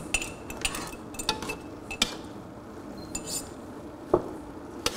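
A small knife scraping and tapping inside a jar to get out the last of a dressing, with a utensil knocking against a pot as food is stirred. Irregular clinks and scrapes, the sharpest a little after four seconds in.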